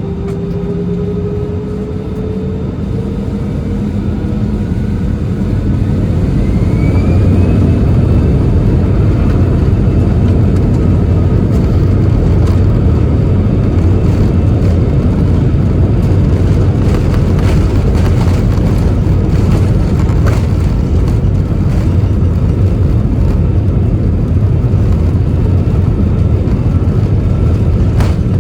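Airbus A320's twin jet engines spooling up for takeoff: a rising whine over a deep rumble that grows louder over the first several seconds, then holds steady and loud. A few faint knocks come in the second half.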